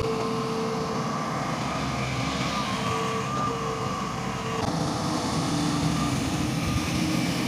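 Diesel engines of heavy earthmoving machines, a Hitachi long-reach excavator among them, running steadily with a tone that comes and goes above the engine rumble. The sound changes abruptly about four and a half seconds in.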